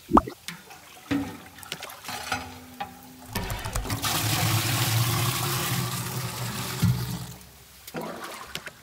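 Thick milky ice-cream mixture pouring from a pot into a tall rectangular metal mould, a steady splashing rush from about three and a half seconds in until nearly eight seconds. It comes after a few short knocks in the first second or so.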